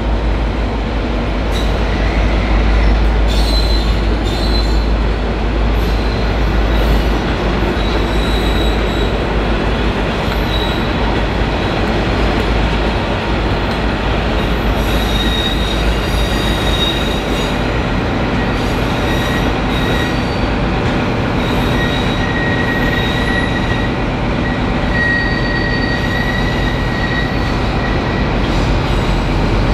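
Diesel-hauled passenger train rolling through the station, a steady rumble of wheels on rail with high-pitched wheel squeal coming and going. A heavy low engine rumble is strongest at first and eases off after about seven seconds.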